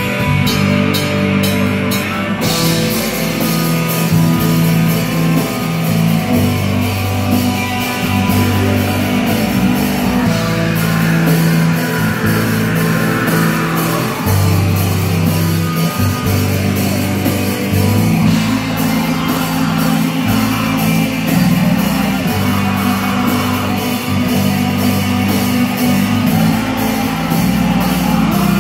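Heavy metal band playing live: distorted electric guitar and bass guitar holding low chords that change every couple of seconds over a steady drum-kit beat, with a vocalist singing into a microphone.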